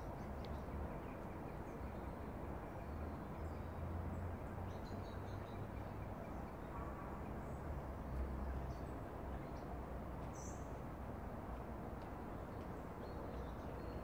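Wild birds chirping and calling now and then, short scattered calls with one louder call about ten seconds in, over a steady low background rumble.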